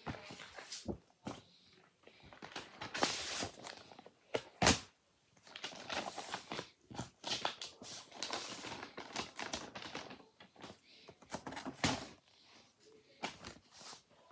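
Vinyl record packaging being handled: rustling and scraping with scattered taps and knocks. The loudest is a sharp knock about four and a half seconds in.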